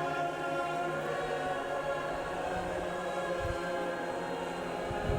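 Background music of slow, held choir-like chords.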